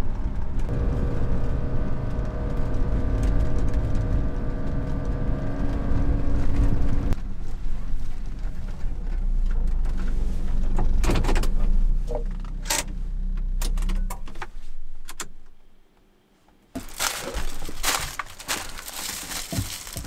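Subaru Sambar kei truck's engine running, heard from inside the cab, with a steady hum that drops about seven seconds in; a few sharp clicks and a jangle of keys follow, and the engine stops about fifteen seconds in. After a brief silence, a door opening and plastic-bag rustling.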